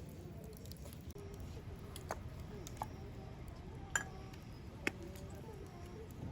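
A few sharp clicks and clinks, four in all, the loudest about four seconds in, over a low steady background with faint far-off voices.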